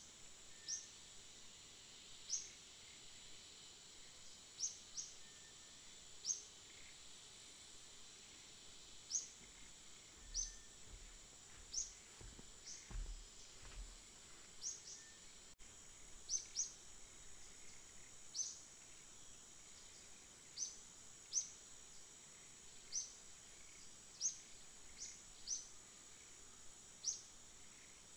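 A small bird chirping again and again: short, quick-rising high chirps every second or two, over a faint steady high-pitched hiss.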